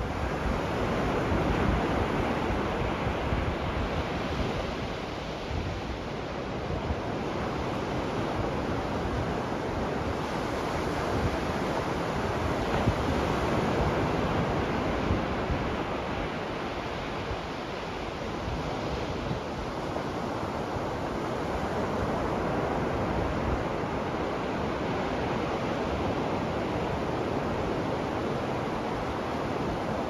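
Ocean surf washing onto a beach: a steady rush of breaking waves that swells and eases slowly every several seconds.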